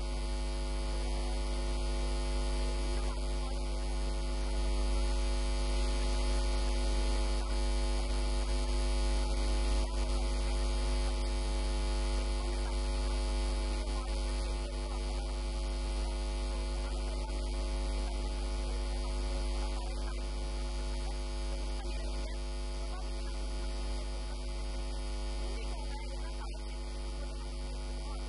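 Steady electrical mains hum and buzz on the recording: a strong low hum with a stack of steady higher tones above it, unchanging throughout, and no voice.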